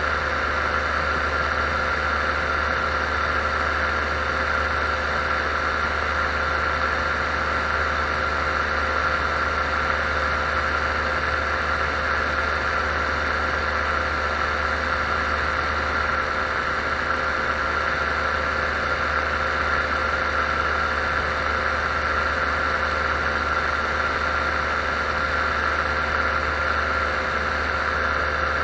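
Paramotor engine and propeller running at a constant cruise throttle in level flight: a steady drone with a constant higher tone above it, unchanging throughout.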